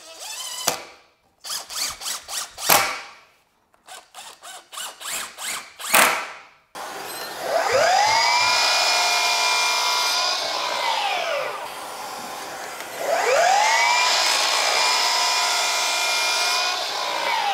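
Milwaukee sliding miter saw run twice. Each time the motor's whine rises as it spins up, holds while the blade cuts through wooden door casing, and falls away as it spins down. Before the first cut there is a run of irregular sharp knocks from wood pieces being handled.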